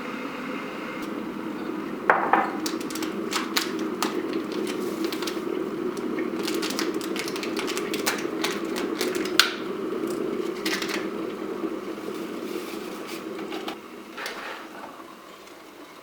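Household kitchen work: quick clicks, knocks and clinks of dishes and utensils over a steady low rushing noise that fades out near the end.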